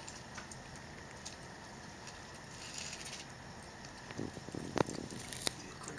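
Raccoons eating crackers and dry kibble off concrete: scattered soft crunching and clicks, busiest with a couple of sharp cracks about four to five and a half seconds in.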